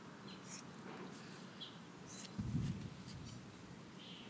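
Scissors snipping through a dog's long fur, a couple of faint cuts, with a louder low thump about two and a half seconds in.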